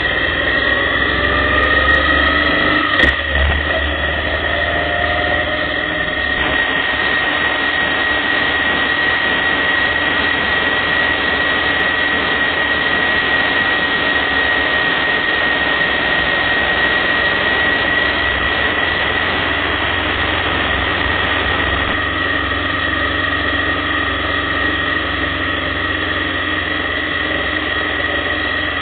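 Motorcycle engine running at road speed under rushing wind noise. The engine pitch rises over the first few seconds, then it cruises steadily with a constant high whine, and there is one sharp click about three seconds in.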